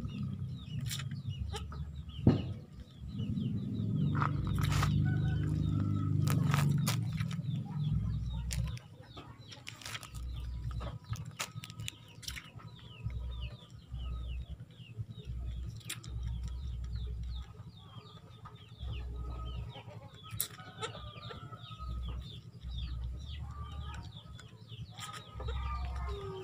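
Chickens clucking and chirping in short calls throughout. A low rumble is heard in the first eight seconds, and a single sharp knock about two seconds in.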